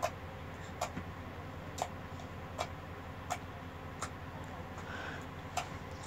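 Pink slime squeezed and poked by fingers in a bowl, trapped air popping out as sharp clicks about once every three-quarters of a second, over a low steady hum.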